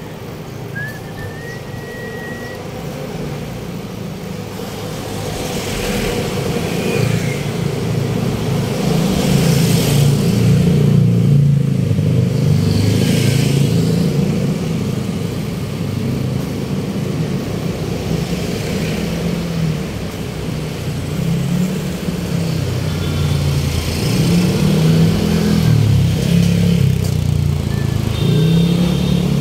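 Road traffic: vehicle engines running with several vehicles passing by close, the traffic growing louder over the first ten seconds.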